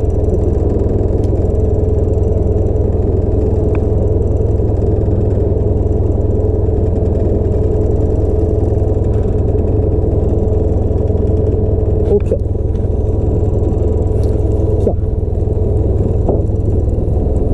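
Boat's engine running steadily at idle, a continuous low drone with a steady hum.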